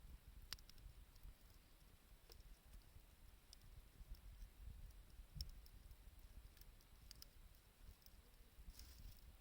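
Faint, sparse crackling of a wood campfire: irregular sharp pops and ticks of burning wood, several seconds apart at times, over a low rumble.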